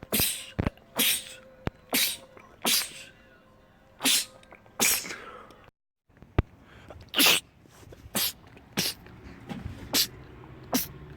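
A man sneezing over and over in quick succession, about eleven short, sharp sneezes, most of them less than a second apart.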